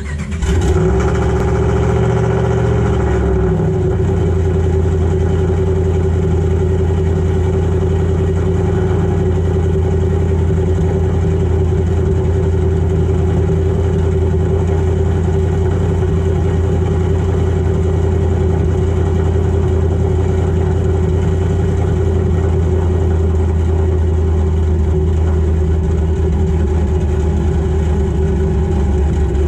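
Turbocharged Hemi V8 pickup with a Tomahawk performance cam, heard from beneath the truck at the exhaust. It fires up, runs at a raised, higher-pitched idle for about three seconds, then settles into a loud, steady idle.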